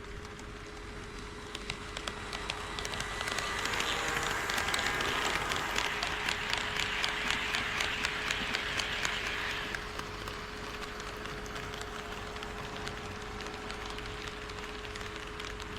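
HO scale model train running past on KATO Unitrack, wheels rattling and clicking rapidly over the rail joints. It grows louder from about two seconds in and drops away suddenly near ten seconds, over a steady hum.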